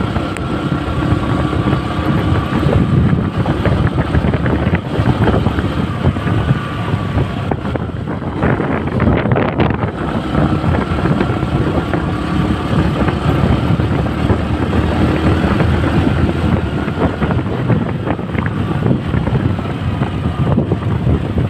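Motorcycle running steadily under way, heard from a helmet chin-mounted camera, with heavy wind noise buffeting the microphone. The rush grows louder for a moment about eight to ten seconds in.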